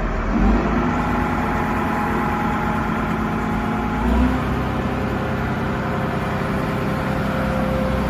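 Large all-terrain mobile crane's diesel engine running steadily, its tone shifting slightly about four seconds in.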